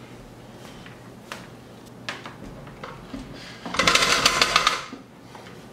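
A KitchenAid stand mixer being handled on the countertop: a few light knocks, then about a second in the middle of rapid rattling and scraping as the heavy mixer is set down and shifted into place.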